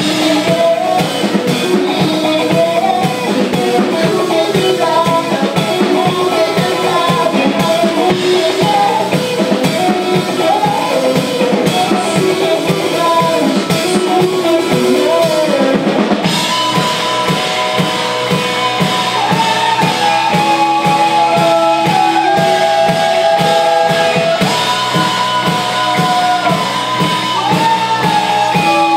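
A live rock band playing: a male lead vocalist singing over electric guitars, bass and a drum kit, with a steady drum beat. About sixteen seconds in, the melody turns to long held notes.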